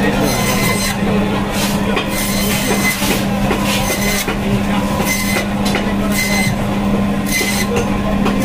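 Electric bone-saw (band saw) running with a steady hum while silver carp is pushed through the blade, several short rasps coming as pieces are cut through.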